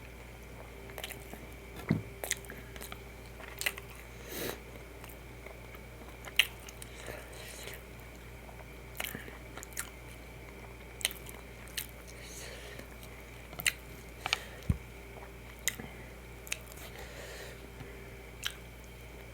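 Close-miked eating: a person biting and chewing food, with short crunchy clicks every second or so over a steady background hum.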